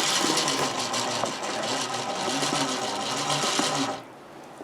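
Electric winch motor on a side-by-side running steadily as it pays out the old steel winch cable, then cutting off abruptly near the end.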